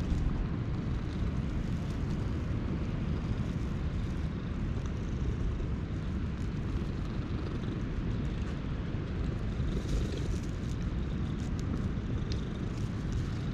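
Orange tabby cat purring steadily while being stroked, a continuous low rumble. Faint rustling comes in near the end.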